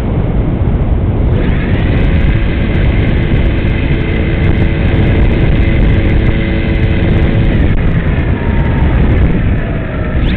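RC model airplane in low flight, heard from a camera on board: heavy wind rush on the microphone with the steady whine of the motor and propeller, its pitch swooping up and down near the end as the throttle changes.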